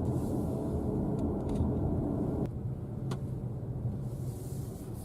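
Car driving at low speed, a steady low rumble of road and engine noise heard from inside the cabin, easing a little about two and a half seconds in.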